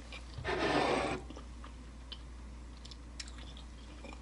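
A person eating spaghetti in rosé sauce. About half a second in there is one brief noisy rush of mouth sound, under a second long, followed by soft chewing with a few faint clicks.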